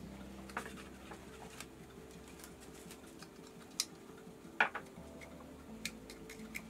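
Small clicks and clinks of a glass test vial and its cap being handled on a countertop, a few scattered taps with the sharpest a little past halfway.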